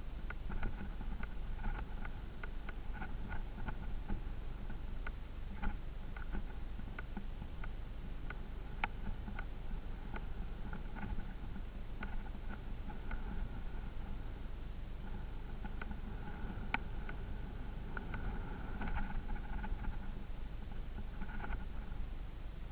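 Vehicle driving off-road: a steady low rumble with frequent knocks and rattles.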